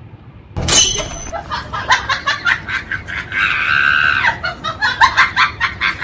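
A person's voice: a sudden outburst, then a quick run of short laughter-like bursts with a drawn-out cry in the middle.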